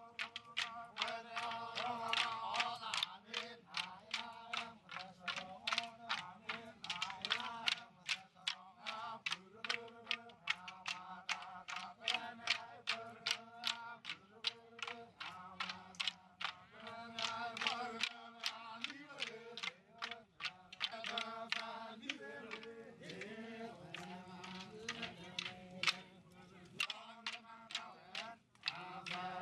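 A group of voices chanting in unison over the sharp clacking of sticks struck together in a seated stick dance, about two to three clacks a second, briefly dropping away near the end.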